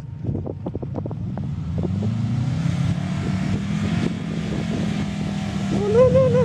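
Subaru Forester's flat-four engine revving under load as the car drives through loose sand, growing louder as it comes closer. Wind buffets the microphone with sharp taps in the first second or so, and a brief high, wavering cry sounds near the end.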